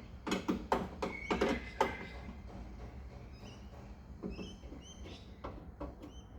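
Sharp metallic clicks and knocks of hand tools working on the nuts at the back of a car door handle, mostly in the first two seconds. After that come faint, short, high animal cries.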